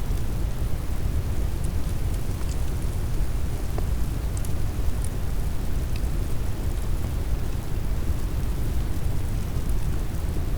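Steady brown noise, a deep even rumble, with a handful of faint, sparse crackles from a wood fire on top.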